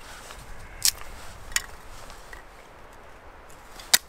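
Thin strips of dry softwood cracking as a blade splits kindling off a board: three short, sharp cracks, the loudest near the end.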